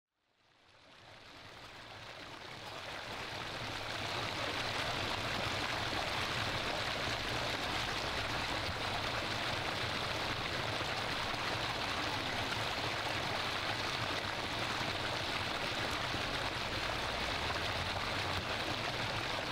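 Steady rush and splash of water in an outdoor fountain pool, fading in over the first few seconds and then holding even.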